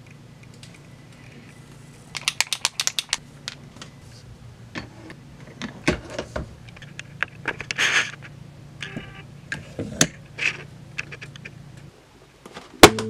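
Small hard objects handled and set down on a desk cutting mat: a quick run of clicks about two seconds in, scattered taps and knocks, a short rustle, and a sharp click near the end, over a low steady hum.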